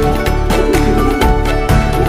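Instrumental interlude of a Hindi film song, with sustained melody over a steady beat.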